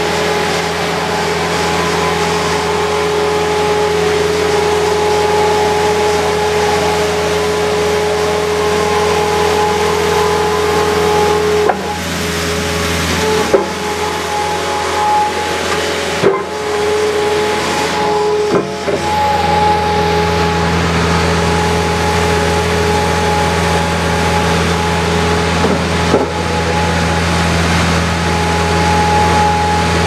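Diesel power unit of a Sierra PN2700 mobile baler running steadily with its hydraulic system under way: a constant whine over the engine, which shifts a little in pitch and level partway through. A few sharp metallic clunks from the machine come in the middle stretch.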